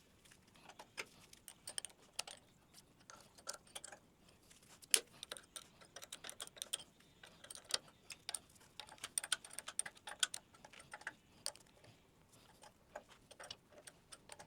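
Faint, irregular metal clicks and taps of hand work on a jointer's cutter head as its straight knives are changed with a wrench, the sharpest tap about five seconds in.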